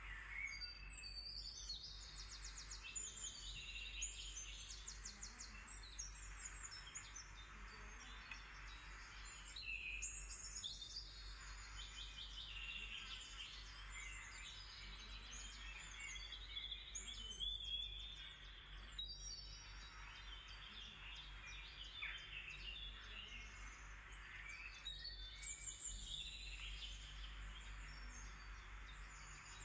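Small birds chirping and trilling in quick overlapping phrases throughout, over a steady low hum.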